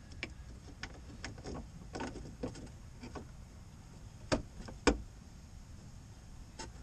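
Handling noise of the LED turn signal wiring being tucked back into a C6 Corvette's headlight area: scattered light clicks and plastic taps, with two sharper knocks a little over four seconds in, half a second apart.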